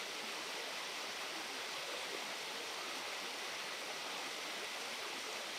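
Steady rush of a fast mountain river running over rocks in whitewater rapids.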